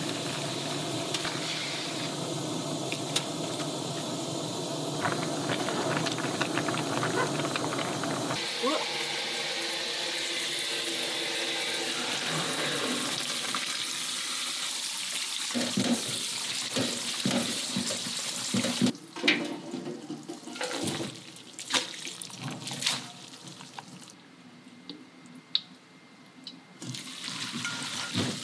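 Buckwheat noodles boiling in a pan of water, then a running kitchen tap and the noodle water poured through a steel strainer in a sink. About 19 seconds in the steady rush of water stops and gives way to irregular splashes as hands rinse the noodles in a steel bowl of water.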